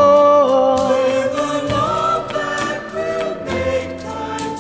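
Background music: a slow love song, with voices holding long, slowly shifting notes over instrumental backing.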